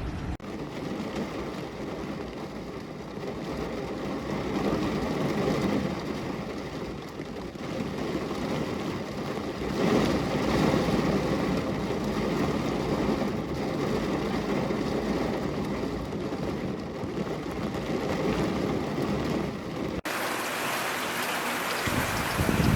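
Rain falling as a dense, low rushing noise that swells and eases. About 20 seconds in it cuts abruptly to a crisper, hissier rain patter.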